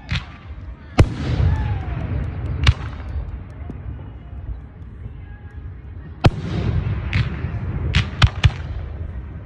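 Aerial fireworks shells bursting: a string of sharp bangs, the biggest about a second in and at about six seconds, then three cracks in quick succession near the end, with a low rumble lingering after each.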